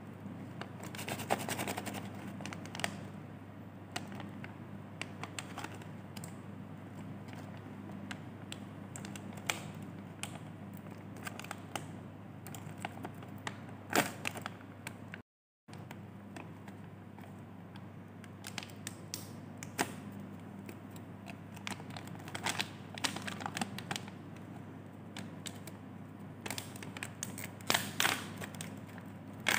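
Foil-lined plastic snack pouch crinkling and crackling as it is handled, squeezed and torn open, in irregular bursts of sharp crackles over a low steady hum. The sound cuts out briefly about halfway through.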